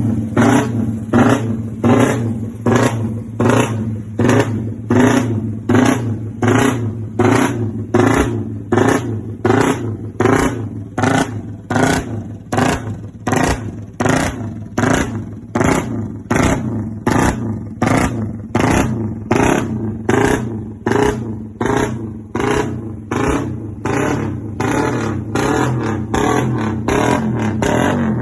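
Carbureted engine running with the throttle blipped over and over, about three quick revs every two seconds on top of a steady idle, as a sound check of the carburetor. Near the end the blips blur into steadier running.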